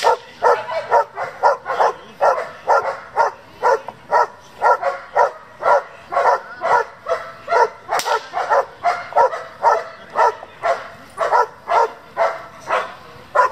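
German Shepherd barking steadily and rapidly, about three barks a second, the drive barking of a dog in protection work. A single sharp crack sounds about eight seconds in.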